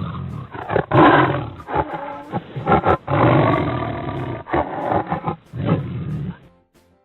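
Tiger roaring: a run of several loud roars with short breaks, the longest about a second long, three seconds in.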